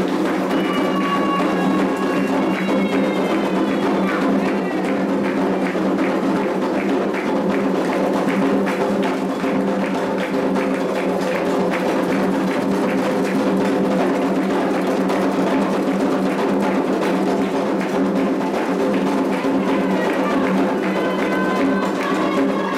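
Candomblé ritual music: atabaque hand drums and a struck wood-block-like beat keep a steady rhythm. Singing voices come in at the start and again near the end.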